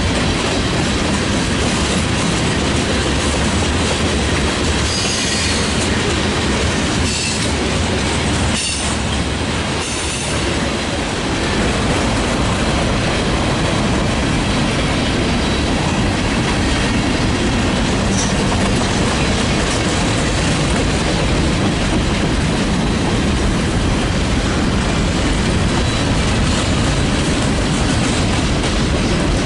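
Freight train cars rolling past close by, a steady loud rumble and clatter of steel wheels on the rails, with a few brief high squeals.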